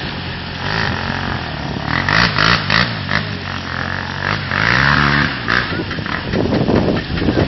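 Quad bike (ATV) engine revving in several rising and falling surges as the stuck machine is pushed and ridden out of deep mud.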